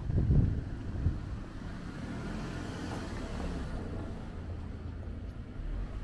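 A car passing on the street, its tyre and engine noise swelling and fading about halfway through, over a low, steady rumble of street noise.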